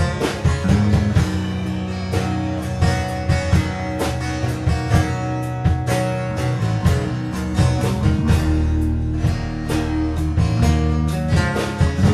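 Live band playing: two acoustic guitars strumming over an electric bass guitar in a steady rhythm.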